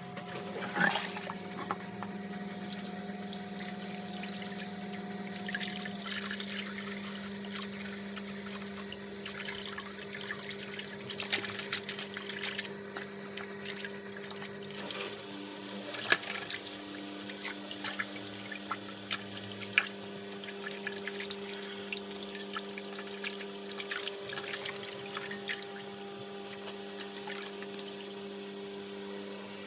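Water running from a tap and splashing as a Hoover Curve vacuum cleaner's canister and filters are rinsed under it. A steady hum sits under the water and shifts pitch twice.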